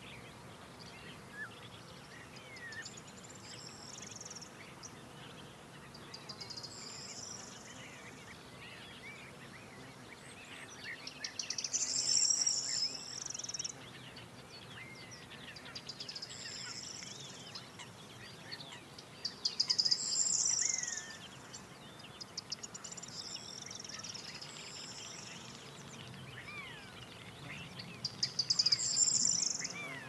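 Songbirds singing in the evening: one bird repeats a short, high phrase, a quick run of notes ending in a longer note, every few seconds, loudest three times. Other birds chirp faintly in between.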